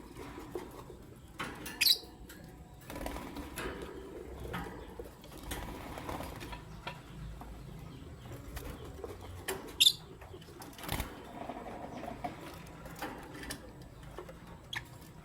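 Lovebirds give two short, sharp, high chirps about eight seconds apart, with scattered light clicks and scrabbling in between.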